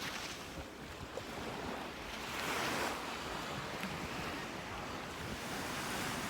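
Ocean surf washing onto a beach, an even hiss that swells and fades as waves come in, with wind rumbling on the microphone.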